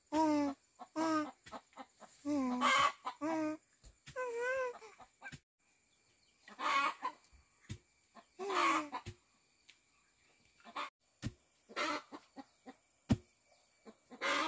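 Chickens clucking: a quick run of short calls, then longer, noisier calls spaced a second or two apart, with scattered sharp clicks between them.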